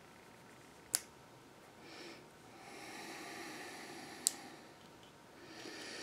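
Two sharp little metal clicks, about three seconds apart, from a small brass padlock cylinder being worked with picking tools in the hands, with slow, audible breaths through the nose in between.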